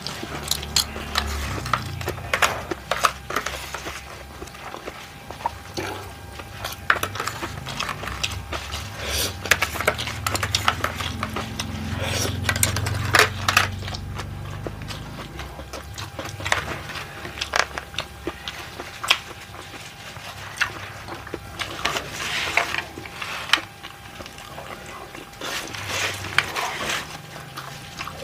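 Close-up eating sounds: chewing and mouth smacks, with plastic fork and spoon clicking against a plastic takeaway food tray.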